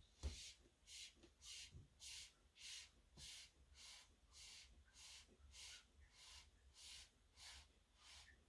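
Faint, rhythmic puffs of air from a mini air blower, about three every two seconds, each a short hiss, pushing wet pour paint out into a bloom.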